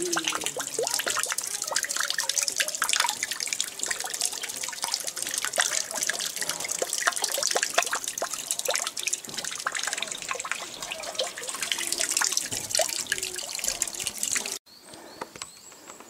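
Running water splashing steadily, a dense crackling wash of sound that cuts off suddenly near the end.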